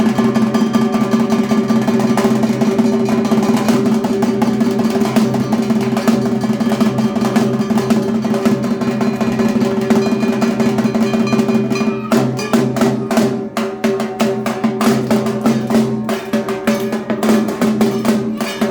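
Dhak drums beaten with sticks in a fast, dense rhythm over a steady ringing drone. About twelve seconds in, the strokes become sharper and more spaced out.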